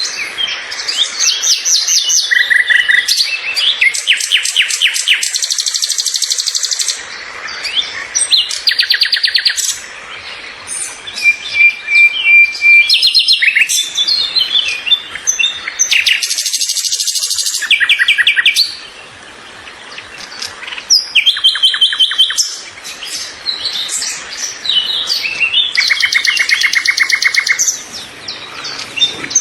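Several songbirds chirping and singing: fast trills, rapid strings of repeated notes and short whistled calls. The mix of calls changes abruptly every few seconds.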